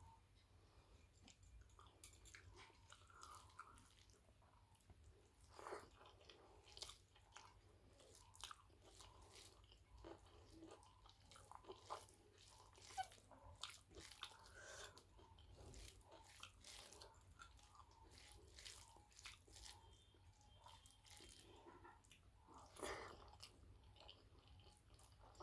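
Close, faint eating sounds of a person chewing a meal of rice with potato and drumstick curry and brinjal bharta: irregular wet mouth clicks and chewing, with a few louder bites scattered through.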